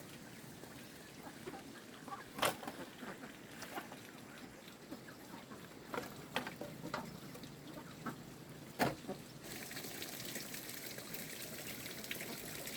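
A few sharp, scattered knocks and clicks, then about three-quarters of the way through a steady hiss of running water starts.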